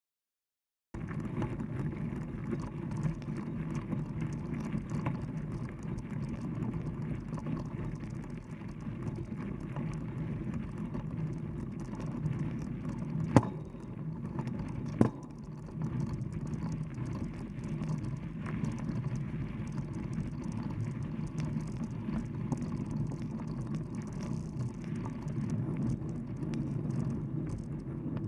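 Mountain bike riding over a gravel and dirt trail, heard from a camera mounted on the bike: a steady rumble of tyres on loose gravel. Starts after about a second of silence, with two sharp knocks about a second and a half apart midway through.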